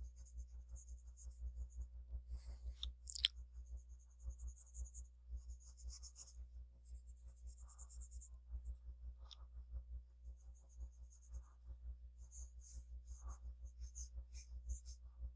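Faint scratching of a stylus dragged across a graphics tablet in intermittent painting strokes, with a sharper tap about three seconds in, over a steady low hum.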